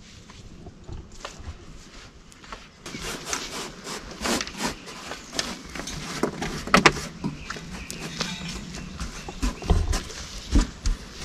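Irregular knocks, taps and scrapes of hands working at a steel charcoal kiln: the metal lid is handled and sawdust is patted round its rim to seal it. The loudest is a sharp knock about seven seconds in.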